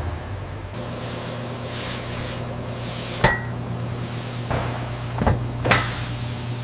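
Factory machinery running with a steady low hum, and a few sharp metallic clanks, the loudest about three seconds in, each with a short ring.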